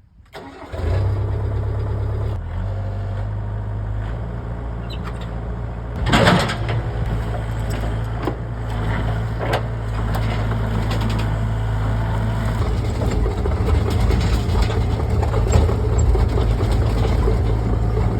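Excavator's diesel engine starting about a second in, then running steadily, with a brief louder surge about six seconds in.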